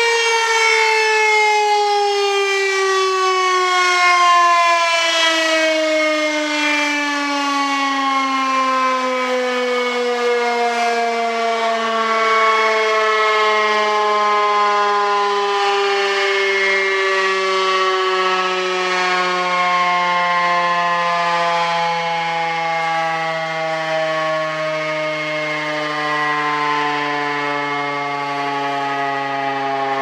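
Darley STH-10A three-phase electric outdoor warning siren winding down. Its loud wailing tone falls slowly and steadily in pitch the whole time.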